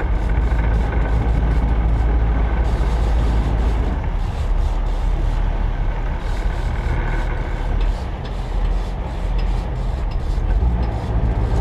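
Sportfishing boat's diesel engines running steadily under load as the boat backs down on a hooked marlin, a heavy low drone with churning wash.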